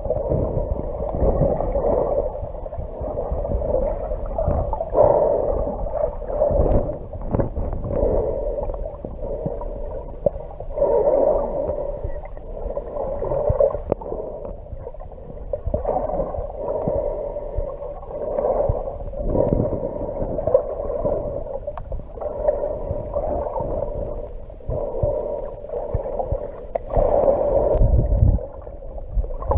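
Muffled underwater water noise heard through a GoPro's waterproof housing, a hollow tone that swells and fades every second or two, with a low rumble beneath.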